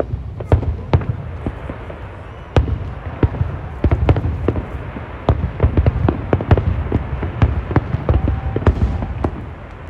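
Fireworks display: a rapid barrage of bangs and crackles over a steady low rumble. The bangs are sparser for the first two and a half seconds, then come thick and fast until they thin out just before the end.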